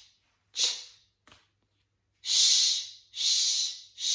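A woman voicing the phonics sounds without her voice: the tail of one short 'ch' and one more about half a second in, then three long 'sh' hisses in a row from about two seconds in, each held under a second.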